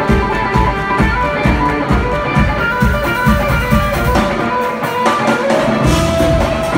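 Live band playing: electric guitar over keyboards, with drums and bass keeping a steady low beat. The low beat drops out for about a second past the middle, then comes back in.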